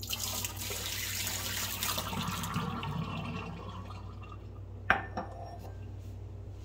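Water poured from a mug splashing into a stainless steel sink for about three and a half seconds, then tapering off. About five seconds in, a single sharp clink rings out.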